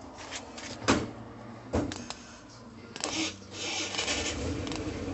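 Steel coil spring being unscrewed by hand from a handbrake cable: two sharp metallic clicks about a second and nearly two seconds in, then a continuous rasping of the coils from about three seconds in.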